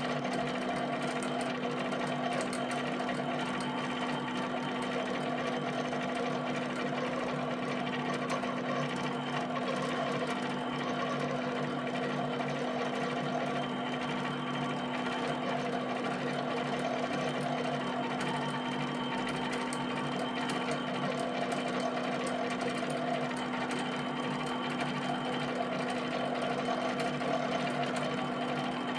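HP 7585B pen plotter drawing small dots: its servo motors hum and whir steadily as the pen carriage and paper shuttle, over a fast, even patter of ticks from the pen dropping and lifting.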